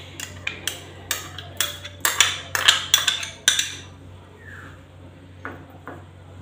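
Metal spoon clinking and scraping against glass bowls as sour yogurt is scooped from a small bowl into a larger one: a quick run of sharp clinks and knocks, loudest midway, then two soft taps near the end.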